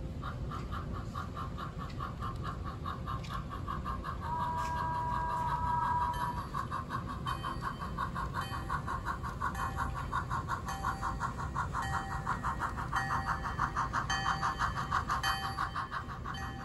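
HO scale model steam locomotive's sound decoder playing fast, rhythmic steam chuffs through its small speaker, with a whistle blown for about two seconds around four seconds in.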